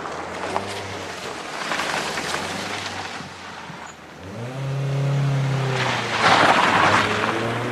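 Ford Mondeo taxi's engine running as it drives off, rising in pitch about four seconds in as it accelerates, with a swell of tyre and road noise near the end.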